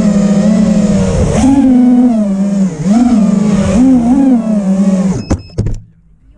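Electric motors and propellers of a small FPV aircraft, heard from its onboard camera, humming loudly and rising and falling in pitch with the throttle. About five seconds in the sound cuts off with a few sharp knocks as the aircraft crashes and ends upside down.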